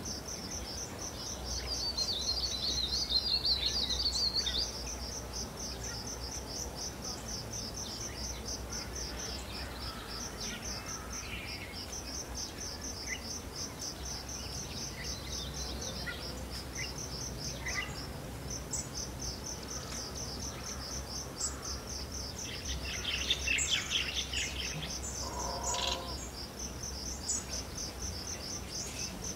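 Crickets chirping in a steady run of rapid, even pulses, with bird calls over them about two to four seconds in and again around twenty-three to twenty-six seconds in. A faint low rumble lies underneath.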